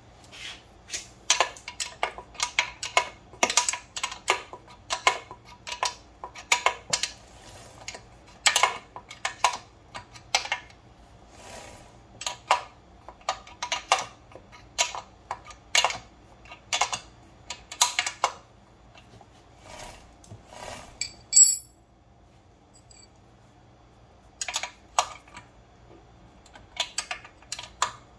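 Irregular metallic clicks and clinks of hand tools on the motorcycle's rear chain adjusters as the chain is tightened, with one louder, sharper clink and a short pause near the end.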